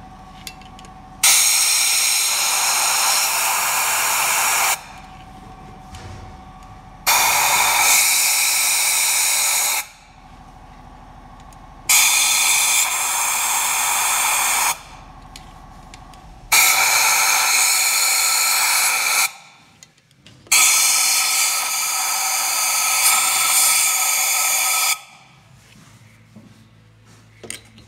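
Compressed air hissing from an air gun in five long blasts of about three seconds each, with short pauses between them. The air is being blown into a cylinder head's ports to check whether the valves seal.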